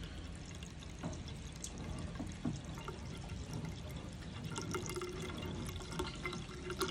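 Water trickling and dripping through a PVC air-conditioner condensate drain line being flushed with poured water, with many small drips.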